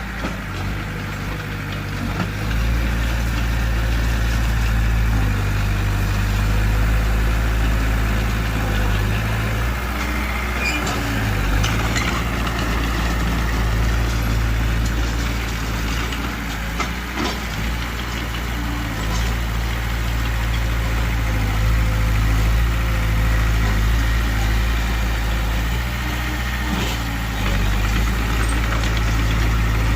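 Heavy diesel engine of earthmoving machinery running under load, growing louder about two seconds in and easing off briefly a few times, with a few sharp metallic clicks.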